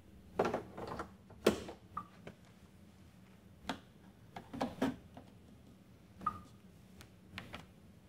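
Countertop espresso-prep handling: irregular knocks, clicks and scrapes of a tamper and portafilter being worked, then the portafilter locked into a Breville Bambino espresso machine and glass shot cups set beneath it. The sharpest knock comes about one and a half seconds in, and two brief ringing pings stand out among the clicks.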